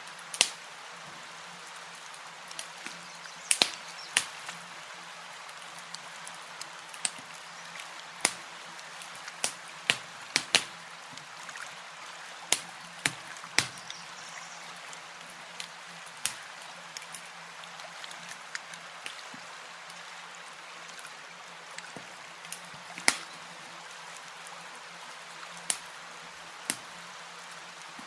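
Campfire crackling: irregular sharp pops and snaps of burning wood, several a second at times, over a steady soft hiss.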